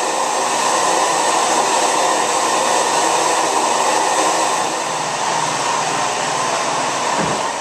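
Steady rushing of a fan or blower running, with a faint whine in it; it dips slightly in level about two-thirds of the way through.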